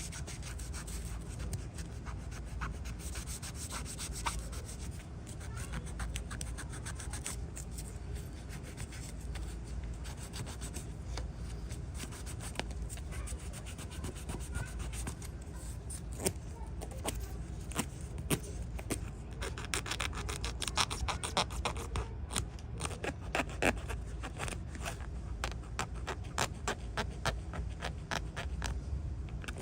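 Hand abrading work on a small diecast model, continuous rubbing and scraping over a steady low hum, with a quick run of sharp ticks and scrapes through the second half.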